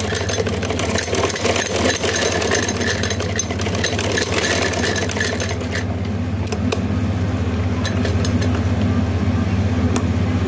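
Domestic sewing machine stitching a strip of piping: a rapid, even run of stitching clatter that stops about six seconds in. After it comes a steady low hum with a few single clicks.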